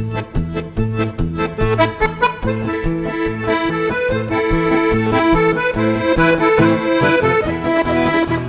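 Background music: an accordion tune in a traditional folk style over a steady, evenly pulsing bass beat.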